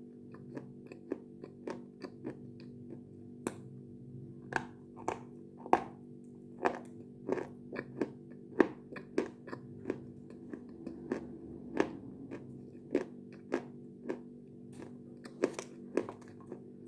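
A person biting and chewing something hard and brittle: sharp, crisp crunches one to two a second, the loudest near the middle, over a steady low hum.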